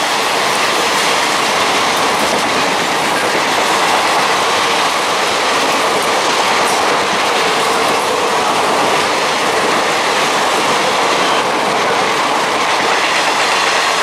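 Passenger coaches of an express train passing at speed without stopping: the steady, loud rush of steel wheels running over the rails.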